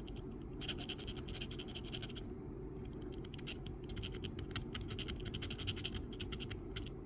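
A small hand file rasping in quick, short strokes across the edge of a tiny photo-etched metal part, filing off its burr. The strokes come in two runs, with a brief pause a little over two seconds in.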